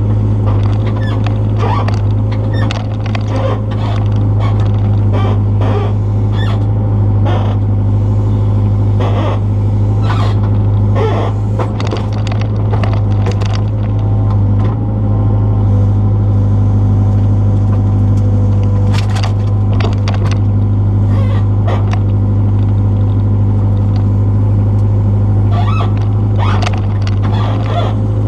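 Excavator's diesel engine running steadily under load, with repeated knocks, scrapes and squeals from the machine digging at stumps.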